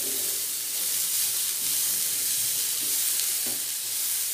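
Grated beetroot sizzling in a little oil in a nonstick pan, with a steady hiss, while a wooden spatula stirs and scrapes through it a few times.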